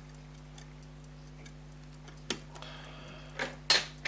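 Small sharp clicks and taps of metal tools against a silver pocket watch case while a pin is worked into it: a few faint ticks at first, then several louder clicks in the second half, the loudest near the end. A steady low hum runs underneath.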